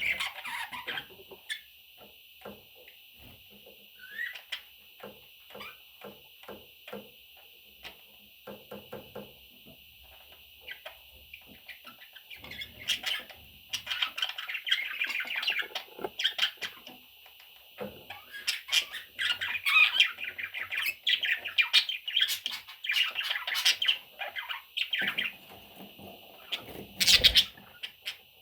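Baby budgerigars chirping and squawking. Sparse short chirps and clicks give way, about halfway through, to dense, continuous high-pitched chattering. A loud, sharp burst comes near the end.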